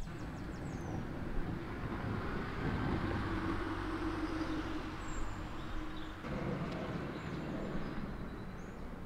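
Road traffic: a motor vehicle's engine and tyre noise swells and fades as it passes, with faint bird chirps above it.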